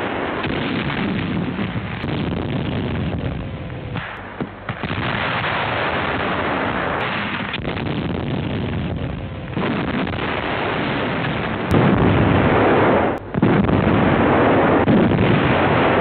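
Artillery fire and shell explosions on a muffled old wartime film soundtrack: continuous rumbling and cracking, with a run of louder blasts in the last few seconds.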